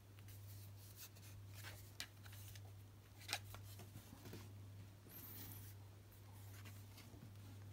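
Faint handling noises, soft rubs and a few light clicks, as hands move a smartphone over cardboard packaging, over a steady low hum.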